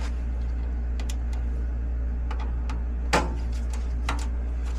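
A steady low hum from a furnace blower just switched back on, with scattered light clicks and one louder knock about three seconds in.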